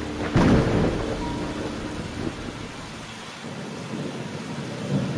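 Rain ambience with thunder: steady rain, a sudden thunderclap about half a second in that rumbles away over the next couple of seconds, and another clap starting at the very end.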